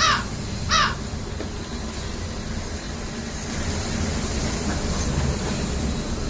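A bird's harsh calls, two short ones in quick succession at the start, then a steady low background rumble.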